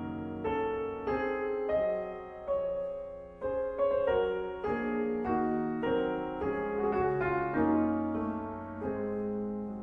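Solo piano playing a slow classical piece: single melody notes struck about every half second, each fading, over held bass notes.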